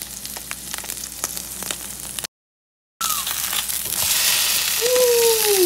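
Salmon fillet frying in coconut oil in a nonstick pan: a steady sizzle with small popping crackles. About two seconds in it drops out briefly, then returns louder and fuller. Near the end a long falling tone sounds over it.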